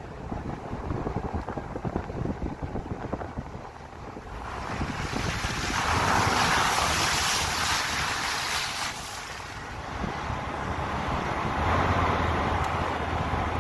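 Jeep driving on a snowy, slushy dirt track, heard from outside the vehicle: wind buffets the microphone while the tyres hiss through wet snow and slush. The hiss swells loudly for a few seconds in the middle.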